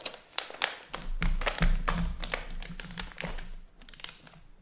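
Hands handling a plastic-wrapped laptop: a quick string of taps and knocks with crinkles of the plastic film as it is set down on a desk and touched.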